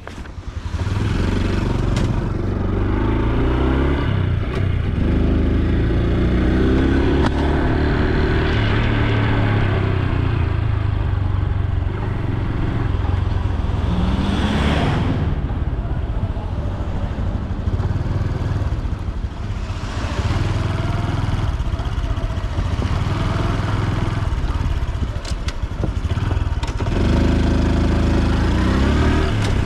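Honda Super Cub C125's single-cylinder 125 cc engine and exhaust running as the bike is ridden. It rises in pitch several times as it accelerates through the gears. A brief whoosh comes about halfway through.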